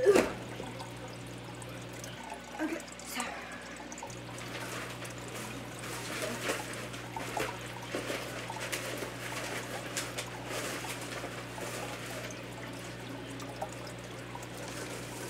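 Rustling and light clattering as things are handled and packed into a cardboard box, with a sharp knock at the very start, over a steady low hum.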